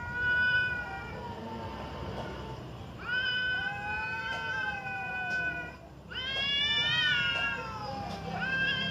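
Cats caterwauling at each other in a territorial standoff: a string of long, drawn-out wavering yowls, one after another with short pauses, the loudest rising and then falling in pitch in the second half.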